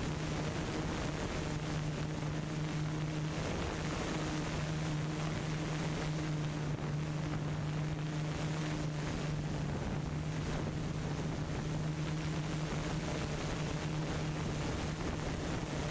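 Steady low mechanical hum under a constant rushing noise, the hum dipping briefly a few times.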